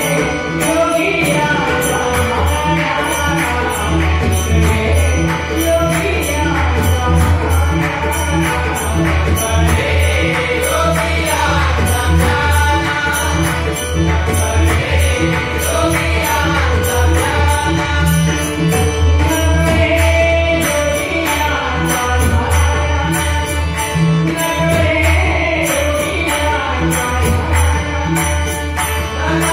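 Devotional bhajan: male voices singing, with a harmonium, a pakhawaj drum and small hand cymbals keeping a steady beat.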